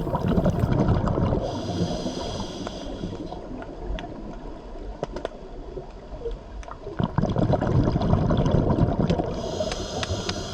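Scuba diver breathing through a regulator underwater: twice a rumbling gurgle of exhaled bubbles and a hiss of air drawn through the regulator.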